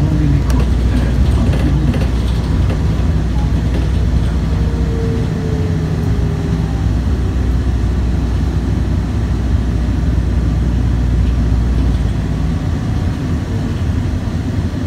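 Cabin noise of a 2006 New Flyer DE40LFR diesel-electric hybrid bus running: a steady low drivetrain drone under road and body rumble. A faint whine about five seconds in falls slightly in pitch, and the drone eases a little near the end.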